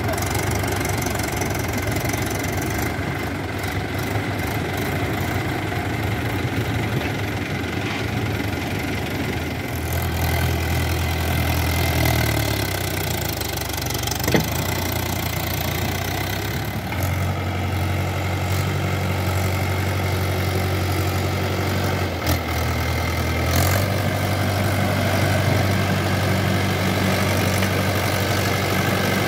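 Swaraj 843 XM tractor's three-cylinder diesel engine running while it pulls a loaded trolley. Its steady note steps up and down a few times, with a couple of short knocks.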